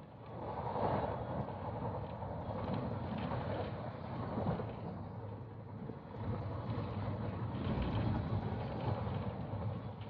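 A vehicle in motion: a steady running rumble with rattling, rising and dipping slightly without a break.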